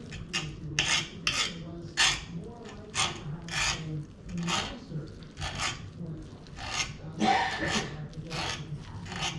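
Metal utensil scraping and raking across a wooden cutting board as slow-cooked beef tongue is shredded: short rasping strokes, roughly two a second and unevenly spaced.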